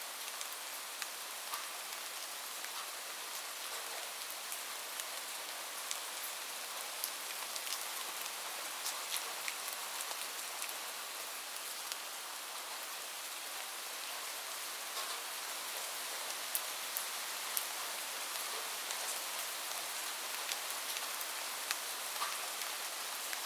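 Light rain falling steadily: a soft even hiss with many scattered individual drops ticking on a surface.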